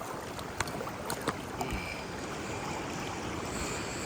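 River water flowing steadily, with a few light clicks about half a second and a second in.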